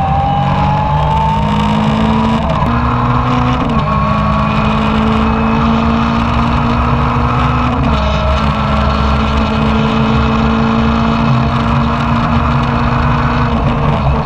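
Renault Clio 2 rally car's engine heard from inside the cabin at full speed: revs climb over the first few seconds, change with gear shifts around three and four seconds in, then run at high revs with another change about eight seconds in.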